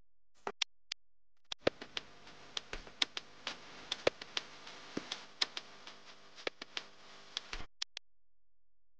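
Background music of sparse, irregular sharp percussive hits over faint sustained tones, starting and stopping abruptly.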